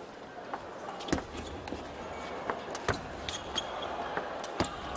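Table tennis rally: the celluloid ball clicks irregularly off paddles and table about a dozen times, with an arena crowd murmur rising in the second half.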